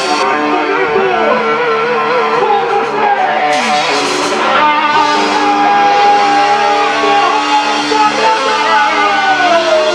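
Band music led by a guitar playing a slow melody of long held notes, one of them sustained through the middle and then bent downward near the end, over a steady backing.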